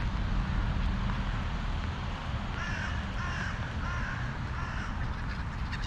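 A crow cawing four times in a quick, even series, starting a little over two seconds in, over a steady low rumble.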